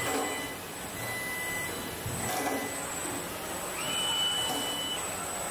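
Car body-shop production line running: industrial robot arms and line machinery give a steady mechanical hiss and hum with soft rises and falls. A steady high tone sounds for about a second near the end.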